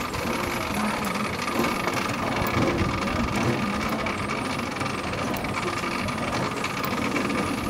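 Pedal-powered cycle monorail car running along its elevated rail: a steady mechanical rolling noise with a faint, even high whine and light ticking.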